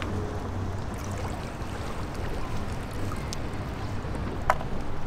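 Water running and dripping from a landing net as it is lifted out of the river, over a steady low rumble. One sharp click about four and a half seconds in.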